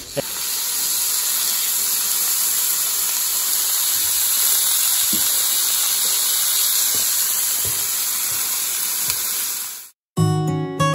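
Chili-rubbed pork tenderloin searing in a hot, oiled cast iron pan: a steady sizzle that cuts off abruptly near the end. Acoustic guitar music starts just after it.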